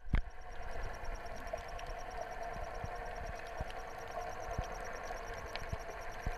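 Underwater sound picked up through an action camera's waterproof housing: a steady muffled engine-like hum, with a faint fast even ticking and scattered sharp clicks.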